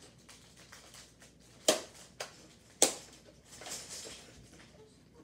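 Scissors snipping plastic packaging off a toy foam-dart blaster: two sharp snaps about a second apart, with softer clicks and handling of the plastic around them.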